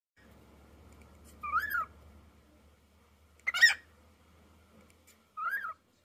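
Cockatiel calling: three short whistled chirps a couple of seconds apart, each rising then falling in pitch, the middle one the loudest.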